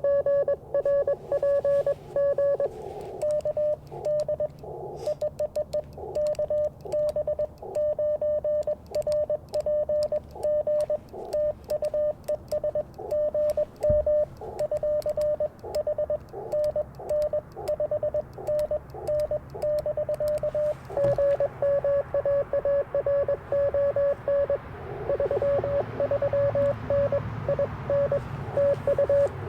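Morse code (CW) from an Icom IC-705 amateur radio transceiver: a single steady-pitched tone keyed quickly in dots and dashes, over a bed of band noise and fainter signals. The hiss swells near the end, and a single low thump comes about halfway.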